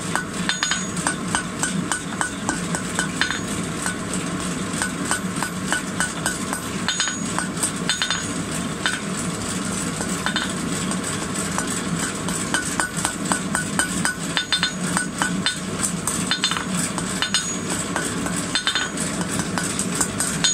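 Hand hammer striking red-hot rebar on a steel anvil, about three ringing blows a second with short pauses, over a steady hiss. The blows are drawing the bar out into a tapered snake's neck.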